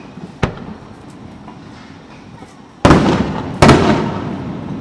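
Aerial fireworks shells bursting: a sharp crack about half a second in, then two loud booms less than a second apart near the end, each trailing off in a long echo.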